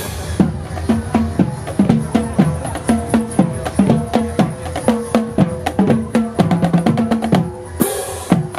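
Marching band drumline playing a steady, driving rhythm on bass drums, snare drums and cymbals.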